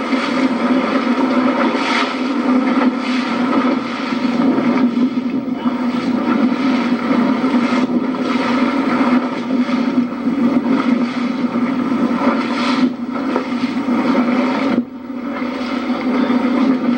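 Motorboat engine running steadily under way, a constant hum with wind and water rushing past. The level dips briefly about fifteen seconds in, then picks up again.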